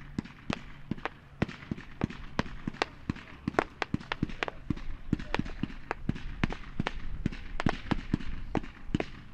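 Dominator 'Waterfall' 500 gram consumer firework cake firing, a steady run of sharp reports at about four a second, irregularly spaced and of uneven loudness.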